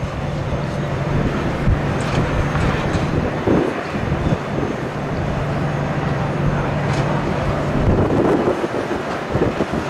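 Jet engines of a taxiing airliner running at idle: a steady low hum over a broad rushing noise.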